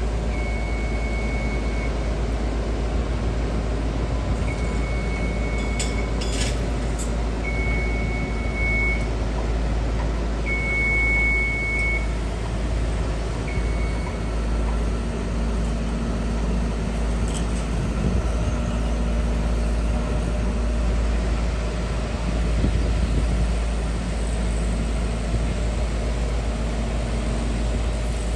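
Heavy machinery running with a steady low rumble while an electronic warning beeper sounds five long beeps, about three seconds apart, over the first fourteen seconds. A couple of knocks come around six seconds in, and a steady low hum joins from about halfway.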